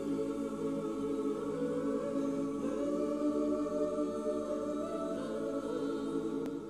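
Slow background music of long, held chords that shift to new chords a couple of times.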